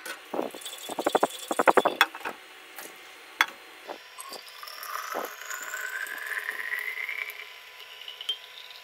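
Water sloshing in a stainless-steel Stanley thermos as it is shaken to rinse it, with a few knocks against the flask. Then water is poured into it, with a pitch that rises steadily as the bottle fills.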